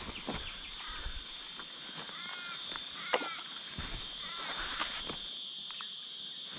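Steady high-pitched drone of an insect chorus, with a bird giving short arched calls four or five times.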